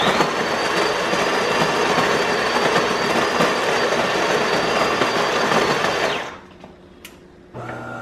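DeLonghi Magnifica S super-automatic espresso machine's built-in conical burr grinder grinding the beans for a two-cup brew. It runs loud and steady for about six seconds, then stops; near the end a lower, quieter hum from the machine starts as it moves on to brewing.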